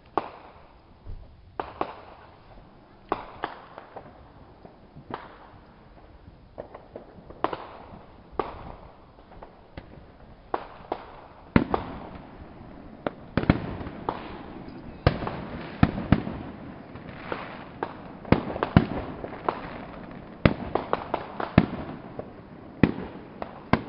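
Aerial fireworks bursting: irregular sharp bangs, each with a short echoing tail, sparse at first and coming thicker and louder from about halfway through.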